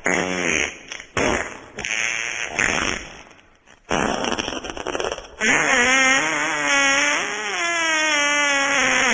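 Wet farts: several short broken ones, then about five seconds in a long drawn-out one with a wavering pitch.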